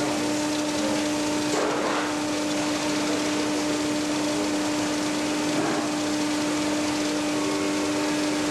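High-frequency induction heating set running: a steady electrical hum over a constant hiss while it holds the metal cone red-hot for a glass-to-metal seal. There is a brief rise in hiss about one and a half seconds in.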